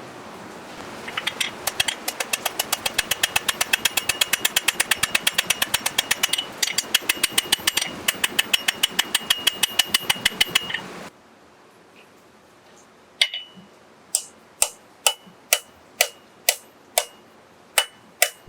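Hammer striking steel on an anvil while a hook is forged on the end of a blacksmith's caliper leg. There is a fast, even run of ringing blows, about four or five a second, over a steady hiss for about ten seconds. The hiss cuts off, and after a short pause come slower single blows, about two a second, each with a short ring.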